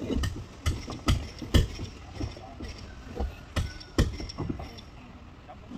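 About ten sharp knocks of hand tools striking at uneven intervals, the work of prying and knocking fittings loose during boat repair.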